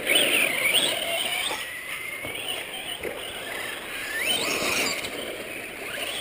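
Radio-controlled truck's motor and drivetrain whining, the pitch rising and falling again and again with the throttle, over the hiss of its tyres on the dirt.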